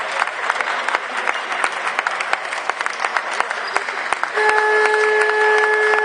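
Crowd applauding in a gym with many sharp claps. About four seconds in, a steady horn starts and holds over the clapping, louder than the applause.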